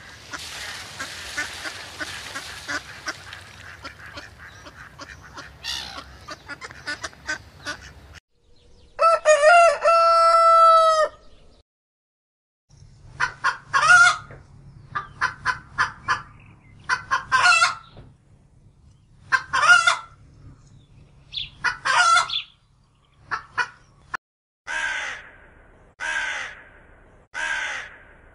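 A sequence of farm and garden bird sounds. First comes a noisy patter of splashing as a duck dabbles in shallow water. About nine seconds in, a rooster gives one long crow, then hens cluck in a run of short calls for about ten seconds. Near the end, a house crow caws three times, about a second and a half apart.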